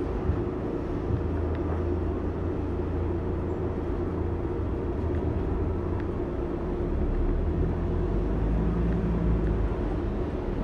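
Cabin noise inside a moving car: a steady low rumble of engine and tyre noise.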